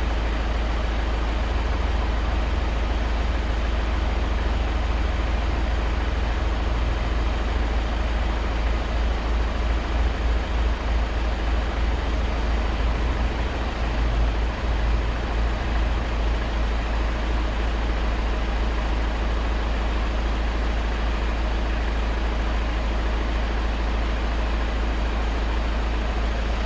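Skoda Fabia's 1.6 TDI four-cylinder diesel engine idling steadily.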